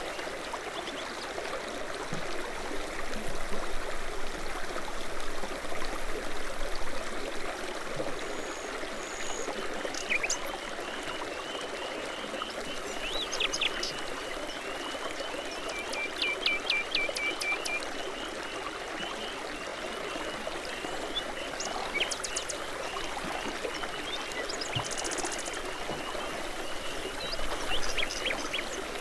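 Babbling brook, water running steadily over stones. Songbirds call and sing over it: scattered short chirps and a long fast trill through the middle.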